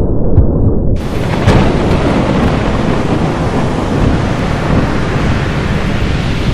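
Thunderstorm sound effect: a low rumble of thunder, then about a second in a loud, steady hiss of rain and storm cuts in, with a sharp crack soon after.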